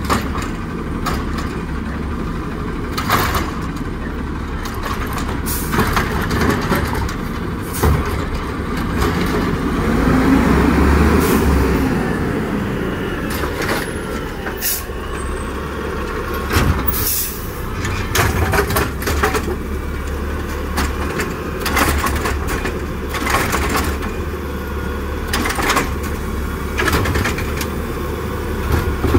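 Natural-gas Peterbilt 320 automated side-loader garbage truck at work: the engine runs steadily while the hydraulic arm lifts and tips a recycling cart. Repeated sharp clanks and hisses come through, and the engine swells about ten seconds in as the truck pulls forward to the next carts.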